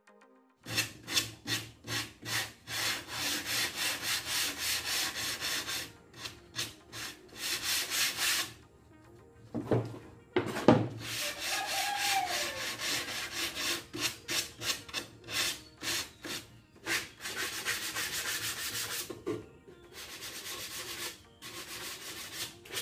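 Cut plywood shelf boards being hand-sanded, quick back-and-forth scraping strokes of about two to three a second in long runs with short pauses. Two sharp wooden knocks come about ten seconds in.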